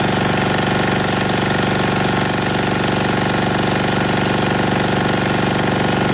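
Denyo DA-2405 diesel generator engine running steadily under a heater load of about 1.6 kW, fuelled with diesel emulsified with 20% water.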